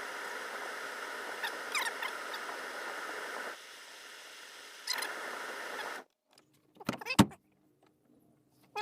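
Steady rushing of a pickup truck's cabin heater blower, which drops quieter for a second or so and comes back before cutting off. A few sharp clicks follow.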